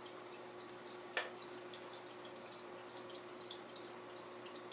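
Faint trickling and dripping of aquarium water over a steady low hum, with one sharp click about a second in.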